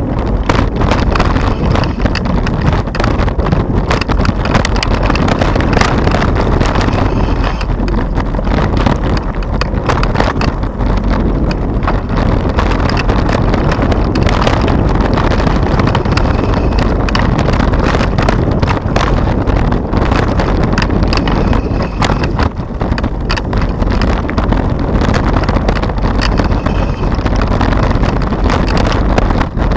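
Mountain bike riding over a dirt forest trail, picked up by a camera mounted on the bike: a steady low rumble of tyres and jolting, with rapid, irregular rattling knocks as the bike bounces over the ground.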